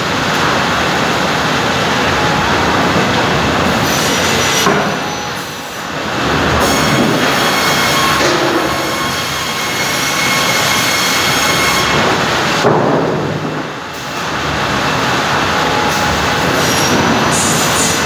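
Cursal TROA Ø550 optimizing crosscut saw running with its powered roller feed, boards moving on the rollers through the saw: a loud, continuous clattering machine noise with faint steady high tones. The noise dips briefly about five seconds in and again near fourteen seconds.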